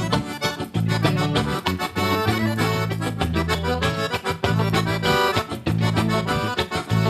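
Instrumental passage of a gaúcho song played live in D major: accordion leading over a quick, even rhythm accompaniment with steady bass notes.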